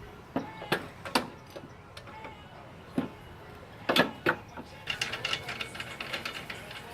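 Metal clanks and knocks of hand tools and suspension parts being worked on a car's strut assembly, then a quick run of light ticking near the end.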